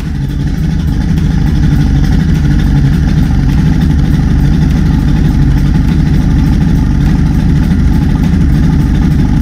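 Yamaha HPDI two-stroke V6 outboard engine running with its cowling off, coming up over the first second or so and then holding a steady idle. This is a spark check: at idle in neutral these engines fire only four of their six cylinders.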